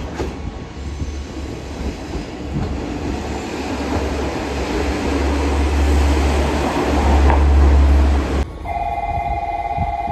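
KiHa 47-series diesel railcar running as it approaches and passes close by, its low engine hum and rumble growing louder. About eight seconds in, this cuts off suddenly to a steady electronic warning bell ringing.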